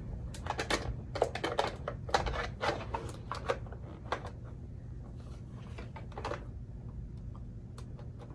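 Quick clicks and knocks of plastic dolls being handled and pushed into the seats of a hard plastic toy convertible, busy for the first few seconds and then sparser.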